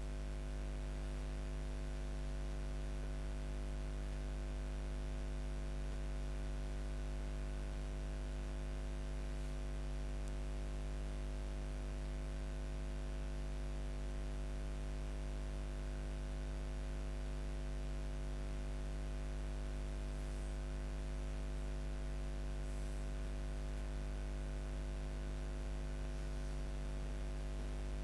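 Steady low electrical hum with even hiss, unchanging throughout, with no other events.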